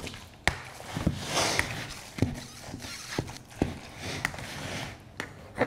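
A large metal spoon stirring raw ground beef in a bowl: soft wet squishing broken by irregular knocks of the spoon against the bowl, about two a second.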